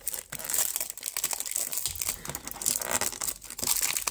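Clear cellophane shrink-wrap on a small cardboard product box crinkling as fingernails pick at it and peel it back: a continuous run of irregular crackles.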